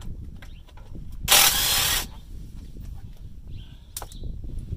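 Cordless impact wrench run on a bolt in one short, loud burst of under a second, about a second in. A single sharp metal click follows near the end.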